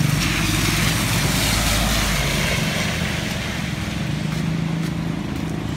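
Motor traffic passing on a wet street: a steady engine hum under a swelling hiss of tyres on wet pavement, which fades after about three seconds.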